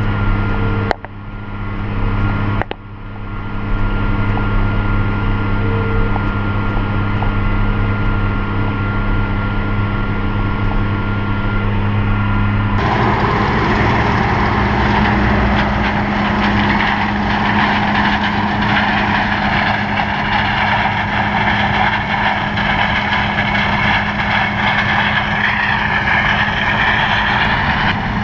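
Farm machinery engine running steadily, with two brief dips in level about one and three seconds in. About thirteen seconds in, the sound switches abruptly to a louder, harsher machine noise with much more hiss, the kind a combine makes while harvesting.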